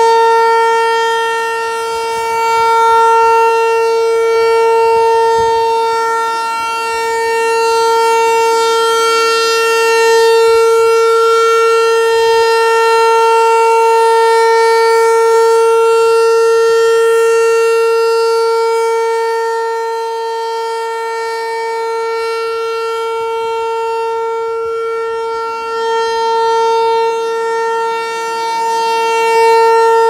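American Signal ASC T-128 rotating outdoor warning siren sounding its steady full-alert test signal: one long held pitch that swells and fades a little as the turning horn sweeps round.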